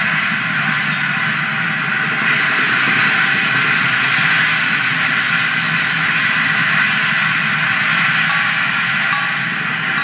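Suspended cymbals and gongs played in sustained rolls: a dense, steady, shimmering metallic wash that swells slightly about two seconds in.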